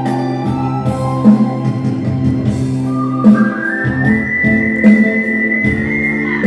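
Ocarinas playing a slow melody over a backing track of guitar and a light beat. The melody steps up about halfway through to a high note held for a few seconds, then starts to slide down at the very end.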